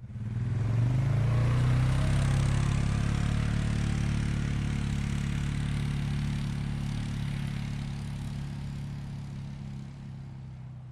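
An engine running at a steady pitch, loudest about a second in and then slowly fading away.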